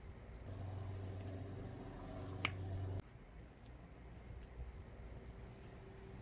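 Crickets chirping steadily at a high pitch, about two chirps a second. Under them a low steady hum runs through the first half and cuts off sharply about three seconds in, with a short high blip just before it stops.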